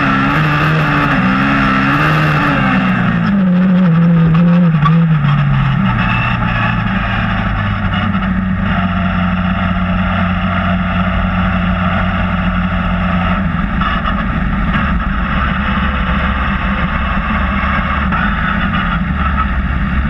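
Race car engine heard from inside the cockpit, revving up and down for the first few seconds, then falling in pitch and settling into a steady low idle.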